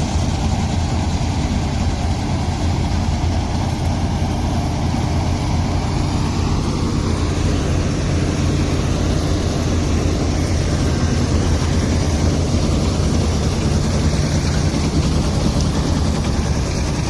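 Heavy engine of rice-harvesting machinery running steadily, with a deep, even drone.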